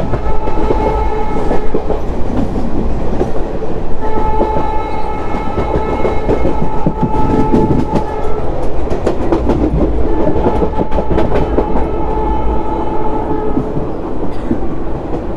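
A WAP7 electric locomotive's horn blowing long blasts, three in all, over the loud running clatter of old ICF coaches: wheels clicking over rail joints.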